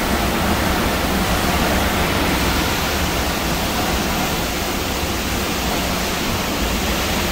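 Hurricane-force wind with driving rain, a steady, loud rushing that does not let up.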